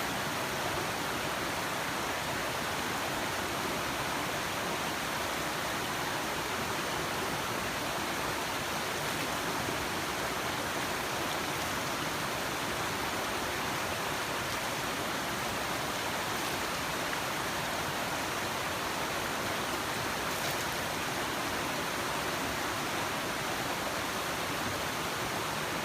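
Clear water running steadily over stones in a small stream, a constant rushing flow.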